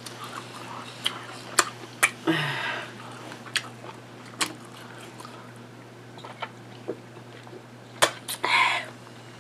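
Close-miked eating mouth sounds: scattered lip smacks and clicks, a short hummed vocal about two seconds in, and near the end a swallow while drinking from a bottle. A steady low hum sits underneath.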